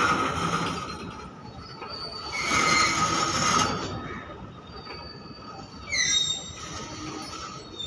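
Covered goods wagons of a freight train rolling past, their wheels squealing in steady high tones. Louder rumbles come as the wagons' wheel sets go by at the start and again around three seconds in. A brief, sharper squeal comes about six seconds in.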